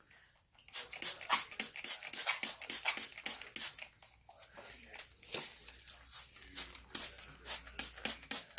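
Small pet parrots making rapid, short, sharp squawks and chatter, several calls a second.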